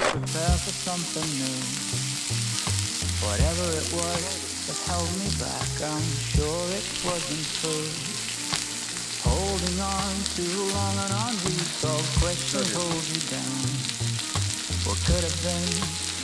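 Food frying with a steady sizzle, under background music with a bass line.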